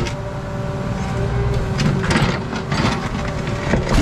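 Mini excavator's diesel engine running steadily under hydraulic load, with scraping and crunching from the bucket prying up a saw-cut concrete slab, strongest twice near the middle.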